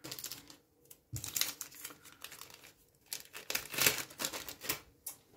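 Clear plastic bags crinkling as bagged plastic model-kit sprues are handled, in irregular bursts.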